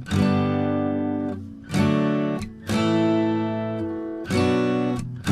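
Background music: acoustic guitar strumming chords, one strum about every one to two seconds, each chord ringing out and fading before the next.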